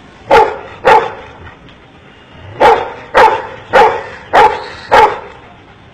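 Golden retriever giving seven short barks: two about half a second apart, a pause of about a second and a half, then five evenly spaced barks about 0.6 s apart. The barks are the dog counting out a number as a trained trick.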